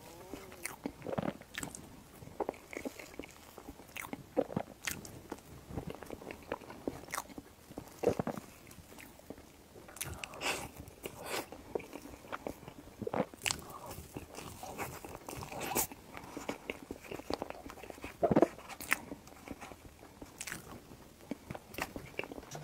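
Close-miked chewing and mouth sounds of someone eating soft tiramisu crepe cake, with irregular sharp clicks and smacks throughout, the loudest about eight and eighteen seconds in.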